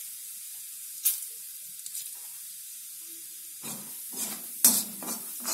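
Spices sizzling in hot oil in a kadhai: mustard seeds, green chillies and ground turmeric, red chilli and coriander powder, a steady hiss with a sharp tick about a second in. From about two thirds through, a metal slotted spoon stirs the spices, scraping and clanking against the pan.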